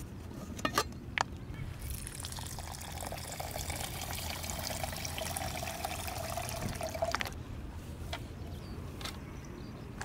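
A few light metal clicks as the hangō's aluminium lid is handled, then water poured from a soft plastic water bag's spout into the aluminium hangō onto dry rice, a steady pour lasting about five seconds that stops abruptly.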